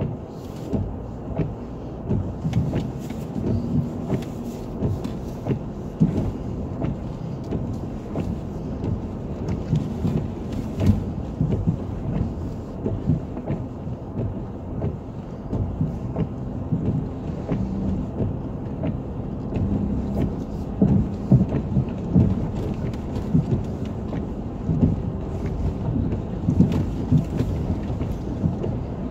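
Cabin noise of a 2007 Suzuki Escudo on all-terrain tyres crawling along a rough, wet 4WD track: a steady low rumble from the engine and tyres, broken by frequent knocks and thumps as the body and suspension jolt over ruts and stones.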